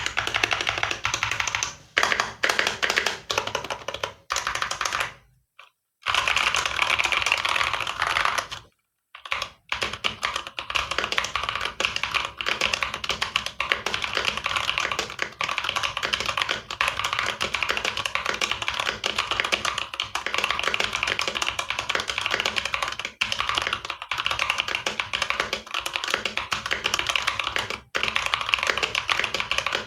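Fast, continuous typing on an Ajazz AK680 mechanical keyboard with ABS keycaps: a dense stream of clacking keystrokes, with two short pauses about five and nine seconds in.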